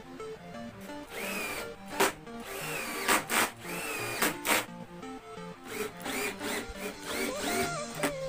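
Cordless drill working into a laminated board in several short bursts, its motor whine rising as it spins up each time. Background music plays throughout.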